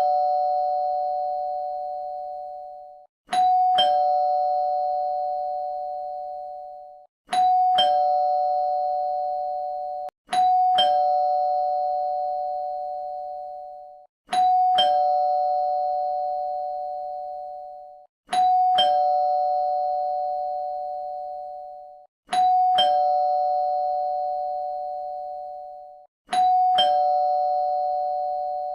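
Two-tone doorbell chime sounding over and over: a higher note then a lower note struck about half a second apart. Each pair rings out for about three seconds before cutting off, and the pair comes about every four seconds, seven times.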